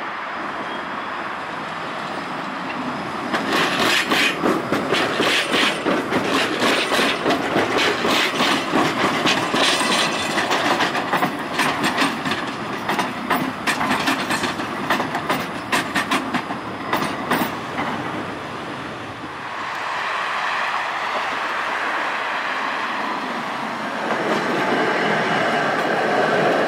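A Škoda ForCity low-floor tram passing close, its wheels clattering rapidly and irregularly over rail joints and the crossings of a track junction for over ten seconds. Then an older Tatra tram pair approaches with a steady running hum and a higher tone joining near the end.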